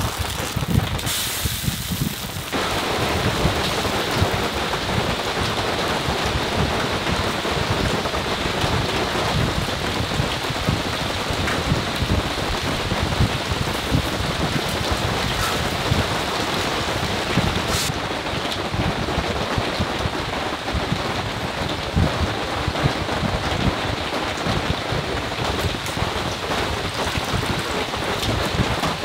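Steady rain pattering on a camper van's roof and windows, a dense patter of drops that fills in and grows a little louder about two seconds in.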